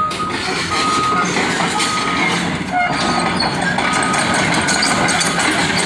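Tracked excavator moving off a trailer: its diesel engine running with a steady rattle from the machine, while a backup alarm beeps at about one beep a second.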